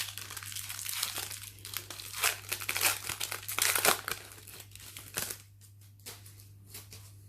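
Foil wrapper of a Pokémon card booster pack crinkling and being torn open. The crackling is loudest in the middle and dies down after about five seconds, leaving a few light ticks.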